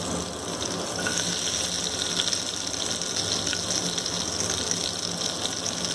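Onions and green chillies frying in hot oil in an aluminium pressure cooker: a steady sizzle that grows brighter about a second in, as the sliced onions go into the oil, over a low steady hum.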